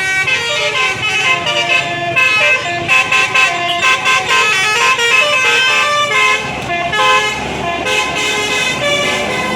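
A bus's Basuri telolet horn playing a tune, its multi-tone notes stepping up and down several times a second, over a low vehicle rumble.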